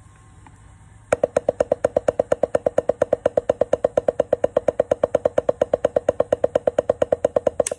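Drumsticks playing a steady, even stream of strokes on an Evans RealFeel practice pad, about seven strokes a second, starting about a second in.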